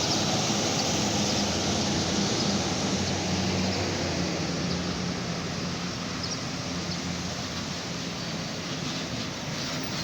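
Intercity bus engine running with a steady low hum under a wash of noise, fading gradually as it goes on.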